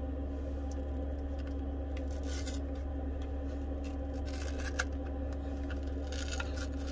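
Plastic pry tool working around the edge of a Samsung Galaxy S23 Ultra's glued-down back glass, prying it free: faint scraping with a few small sharp clicks, the loudest about five seconds in, over a steady low hum.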